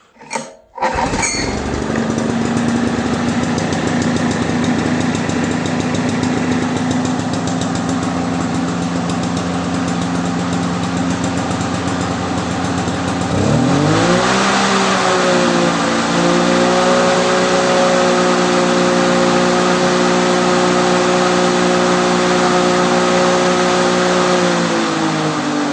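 Yamaha MT110 two-stroke lawnmower engine pull-started, catching within a second and running steadily at low speed. About thirteen seconds in it speeds up with a rising pitch, runs steadily at the higher speed, then drops back near the end.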